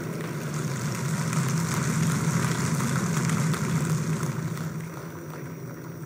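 Large audience applauding, building over the first couple of seconds and dying away near the end.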